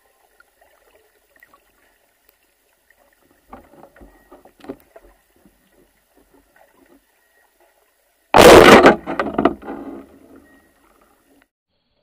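Muffled underwater noise. A few faint knocks and crackles come first, then about eight seconds in a loud sudden rush of noise lasts about a second and a half and dies away in rattles.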